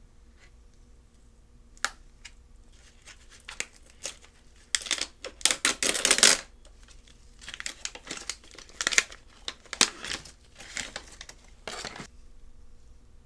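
Product packaging being handled and opened: crinkling and tearing in irregular bursts, loudest a little past the middle, with scattered small clicks and taps.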